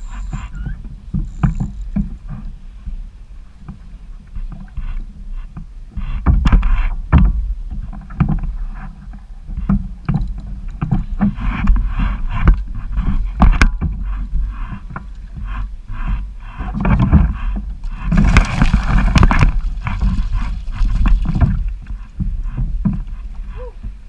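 Kayak on choppy water in strong wind: wind rumbling on the microphone, with water slapping and scattered knocks against the hull. A louder rush of noise comes about three quarters of the way through.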